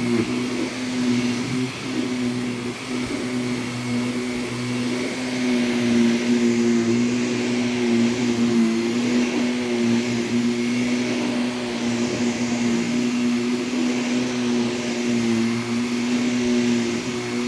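Vacuum cleaner running steadily as it is pushed over a rug, a constant motor hum with small dips in loudness.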